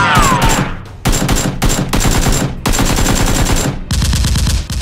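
Automatic gunfire sound effects laid over the action: several bursts of rapid shots with short breaks between them, about a second in and again late on.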